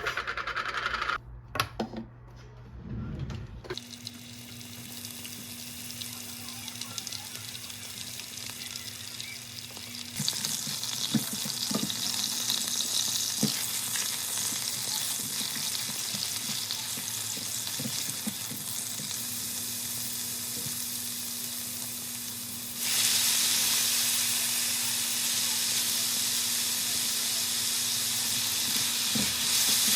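Food sizzling in a hot frying pan: a steady hiss that gets louder about ten seconds in and again past twenty seconds, with a faint steady hum under it.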